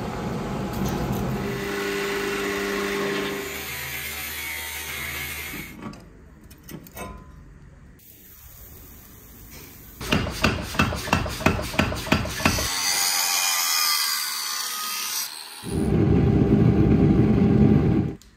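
Blacksmith's forge fire burning with a steady rushing noise, then a run of about eight hammer blows on a red-hot steel blade on an anvil, about three a second. A hissing noise and a loud steady machine noise follow, the latter cutting off suddenly near the end.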